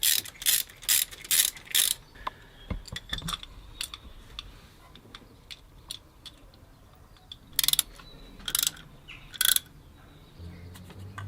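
Socket ratchet wrench clicking in two runs of strokes: about five quick strokes at the start and three more near the end, with faint ticks of tools on metal between them.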